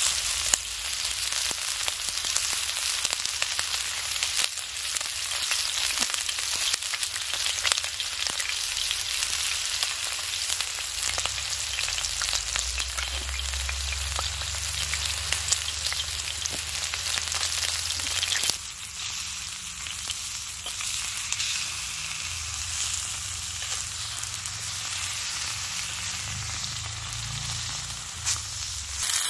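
Steak searing in oil in a hot Petromax wrought iron skillet: a steady, dense sizzle with fine crackling spits, a little quieter after about two-thirds of the way through. A soft low rumble comes and goes underneath.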